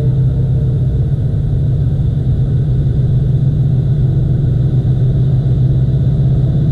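Steady low rumble of an approaching train.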